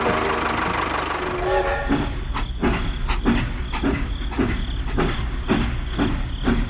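Rhythmic mechanical chugging, about two beats a second over a steady low hum. It starts about two seconds in, after a second and a half of a steady pitched sound.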